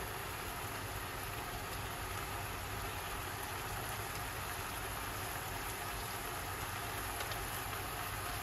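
Chicken thighs and skewered leeks sizzling in bubbling teriyaki sauce in a frying pan: a steady sizzle with a few faint clicks.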